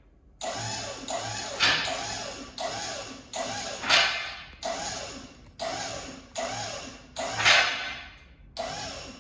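A jack being pumped to raise the monster truck's chassis, with repeated creaking, squeaking strokes a little over one a second, some louder than others. The suspension is being lifted to full extension, limit straps off, to check the 30-inch travel shocks.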